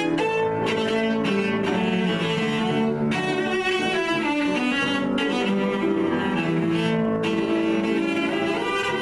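Cello and grand piano playing a classical piece together, the cello bowing sustained notes over the piano accompaniment.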